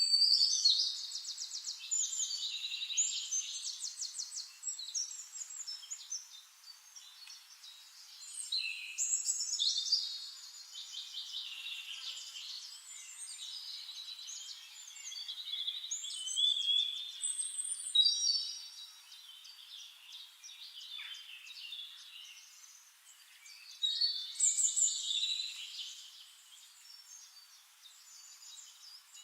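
Several songbirds singing: rapid trills and high whistled phrases overlapping, with bursts of fuller song every several seconds.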